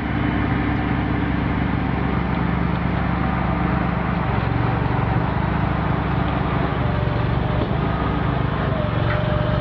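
Heavy-haul truck's diesel engine running steadily as the oversize-load trailer rolls past. Its pitch drops a little about four seconds in.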